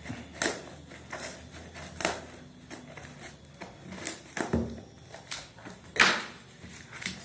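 Scissors snipping through the parcel's wrapping and packing tape, with crinkling and rustling of the wrap: a run of irregular sharp snips and cracks, the loudest about six seconds in.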